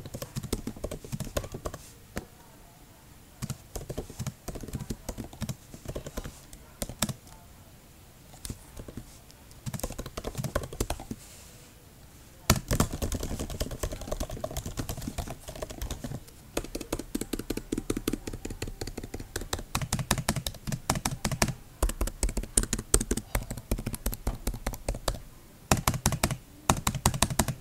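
Typing on a MacBook Air M1's scissor-switch Magic Keyboard: quick runs of light key clicks in bursts, with short pauses between them.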